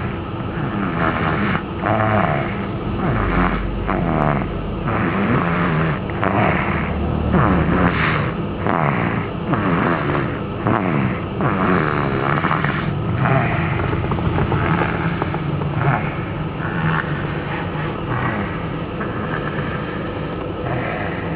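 Loud snoring that goes on without a break, one noisy breath after another.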